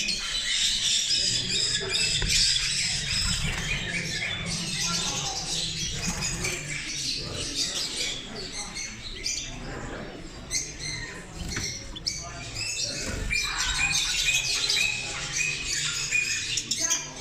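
Many caged birds chirping and squawking at once in a dense, continuous chatter, with a low murmur of voices underneath.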